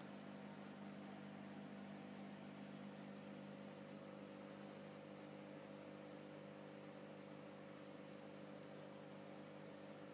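Faint, steady electrical hum of running aquarium equipment, a few low droning tones over a soft hiss, unchanging throughout.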